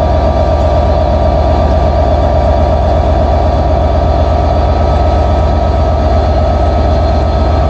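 Class 67 diesel locomotive's two-stroke V12 engine running loud and steady with a deep pulsing rumble as the locomotive starts to pull away.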